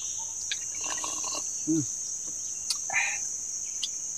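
Insects in the riverside forest trilling steadily in a high, unbroken band, with scattered light clicks and clinks of spoons, plates and a metal cup as a meal is eaten.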